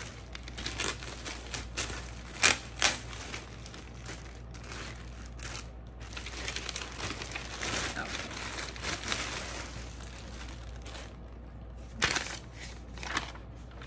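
Clear plastic bag crinkling and rustling while a leather handbag is worked out of it, with a few sharp crackles, the loudest about two and a half seconds in and again near the end.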